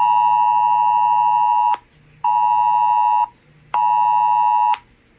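Smartphone emergency alert attention tone for a tornado warning: a loud, harsh two-tone alarm near 1 kHz sounding in three pulses, one of nearly two seconds and then two of about a second each, with short gaps, each cutting off sharply.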